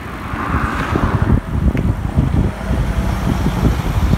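Wind rumbling on the microphone of a moving bicycle, mixed with the hiss of road traffic that swells briefly about a second in.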